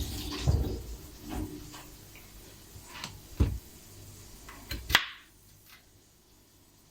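Scattered knocks and clicks of kitchen items being handled and set down, with a sharp click about five seconds in, after which it falls to near silence.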